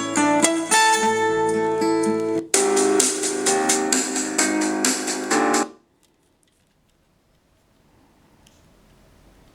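Guitar-led music played through the TG-166 mini Bluetooth speaker. It cuts off suddenly a little over halfway through, leaving only faint hiss.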